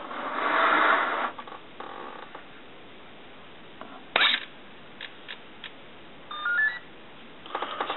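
A switch clicks on the RC buggy, and about two seconds later its electronic speed control plays a short run of start-up beeps stepping up in pitch. It opens with a louder burst of rustling handling noise.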